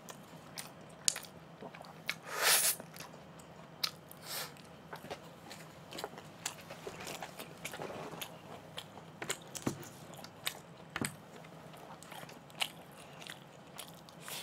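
Close-up chewing and biting of a mouthful of food, with many small scattered clicks and a louder brief noise about two seconds in.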